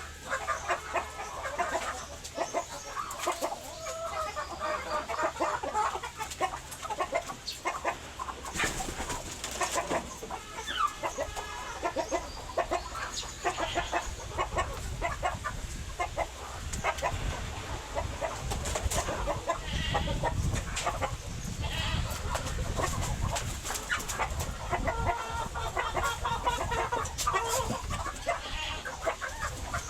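A flock of chickens clucking, with many short calls overlapping, mixed with scattered clicks and knocks. A low rumble joins in about nine seconds in and runs on under the clucking.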